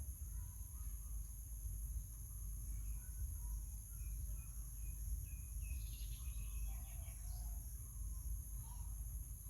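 Steady, high-pitched insect chorus over a low rumble, with a few faint short chirps about halfway through.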